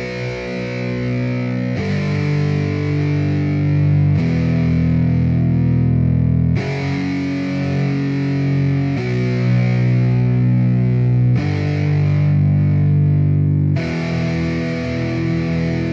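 Instrumental background music led by distorted electric guitar, with chords that change about every two and a half seconds.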